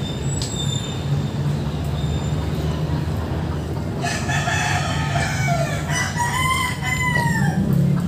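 A rooster crowing once from about halfway through, its call ending in a long drawn-out note that falls away near the end, over a steady low rumble.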